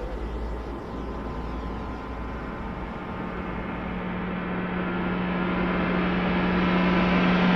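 Ambient film-score drone: a wash of noise over which a steady low hum and higher held tones come in about three seconds in and swell steadily louder, building into the music.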